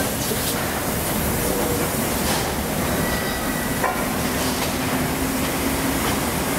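LNER A4 steam locomotive 60009 at the platform: a steady hiss and rumble with a couple of short clanks.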